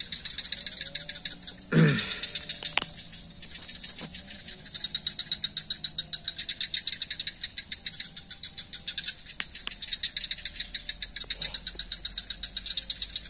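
Night insects chirping in a rapid, even pulse over a steady high hum. About two seconds in, a single short sound falls sharply in pitch and is the loudest thing heard.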